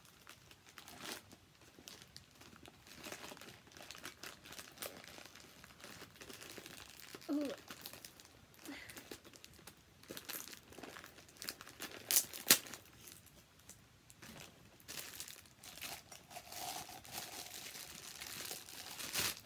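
Gift wrapping paper being torn and crumpled by hand in irregular rustles, with two loud rips partway through; near the end, a clear plastic bag crinkling as the gift is pulled from it.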